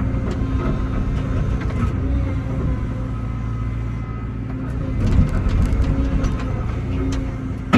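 Excavator diesel engine running steadily, with scattered knocks and clunks of concrete being broken and moved, and one sharp loud clank near the end.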